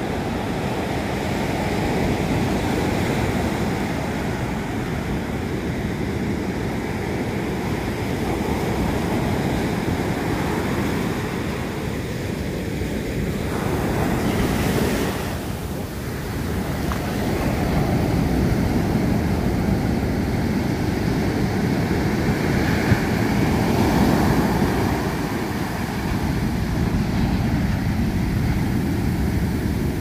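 Ocean surf breaking and foam washing up the sand, a steady rushing that swells and eases with the waves, with wind buffeting the microphone.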